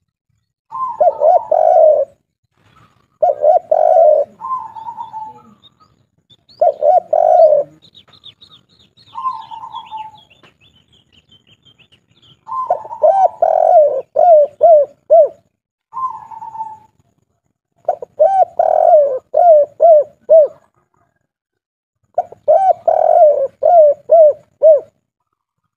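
Spotted dove (tekukur) of the 'kuk 3' type cooing in about eight separate phrases with short pauses between them; several phrases end in a quick run of four or five repeated coo notes. A faint high twittering of a small bird runs underneath between about 8 and 12 seconds in.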